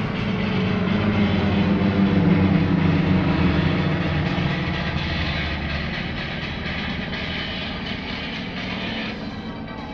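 Propeller engines of a formation of small aerobatic planes droning as they pass overhead, loudest about two seconds in, then fading as they fly away with the pitch dropping slightly.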